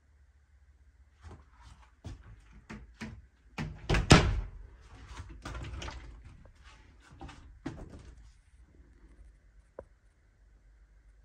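A wooden interior door in a mobile home being handled and pushed open: a string of knocks and thumps, the loudest about four seconds in, and a single sharp click near the end.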